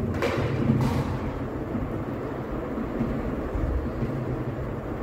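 Two short knocks in the first second, plausibly a kitten batting a plastic bucket on a tiled floor, over a steady low rumble.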